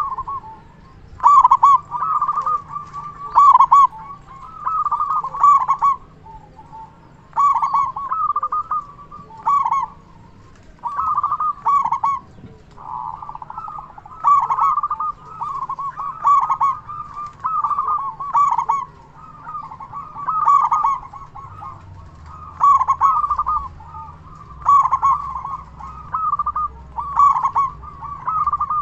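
Local-strain zebra dove (perkutut) cooing its song: short bursts of rapid coos, repeated about every two seconds.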